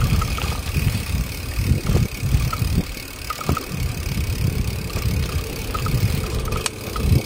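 Wind buffeting the microphone of a moving ride, an uneven low rumble, with a faint steady high whine and a few light chirps over it.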